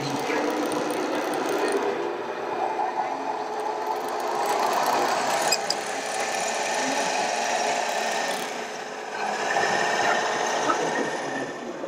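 Radio-controlled tipper truck driving over loose dirt: a steady whirring of its small electric drive motor and gears, with the whine rising and falling near the end.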